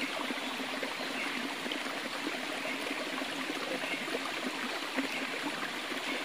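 Forest stream water flowing, a steady, even rush with no breaks.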